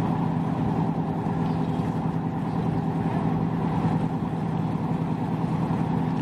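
An engine idling steadily, a constant low hum that holds one pitch and neither revs nor fades.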